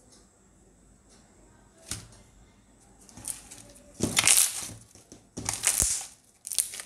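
White slime of Fevicol glue and toothpaste being squeezed and folded by hand, giving several short, irregular squishing bursts from about three seconds in, the loudest around four and five and a half seconds in.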